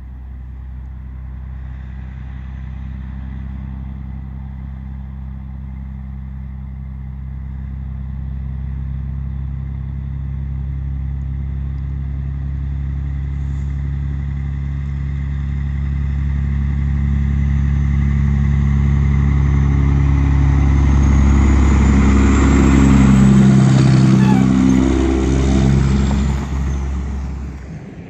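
Loaded log truck's diesel engine running steadily as the truck approaches, growing louder, with tyres crunching on gravel as it passes close by. The engine pitch drops as it goes by near the end.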